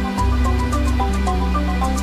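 Background music: a sustained bass line under a melody of short notes, with light percussion ticking.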